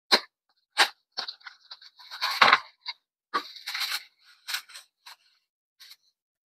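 Packaging being handled and opened: a string of sharp crinkles, clicks and short tearing sounds with brief gaps between them, the loudest about halfway through.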